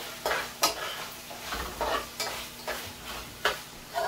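Metal spoon stirring and scraping bora (yardlong beans) frying in an aluminium pot, about two scrapes a second over the sizzle of the frying.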